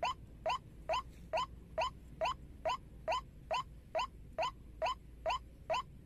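White-breasted waterhen (ruak-ruak) calling: a steady run of short upward-sliding notes, about two a second.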